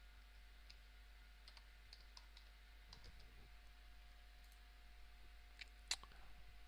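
Faint computer keyboard typing: scattered soft key clicks, with one sharper click near the end, over a faint steady hum.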